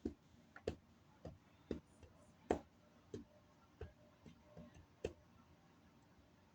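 Faint, irregular clicking, about two sharp clicks a second, stopping about five seconds in.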